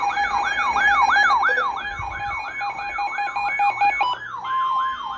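Electronic siren-style alert tone sweeping up and down quickly, about four times a second, over steady alert tones that shift pitch about four seconds in. It signals a newly issued severe thunderstorm warning.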